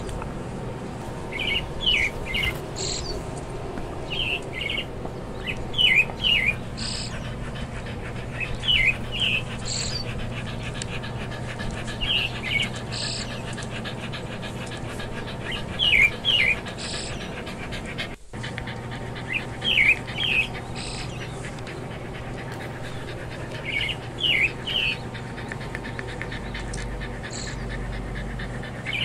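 Birds chirping in short bursts of two or three quick, falling notes every few seconds, with brief thin high notes between them, over a steady low background hum that cuts out for an instant about two-thirds of the way through.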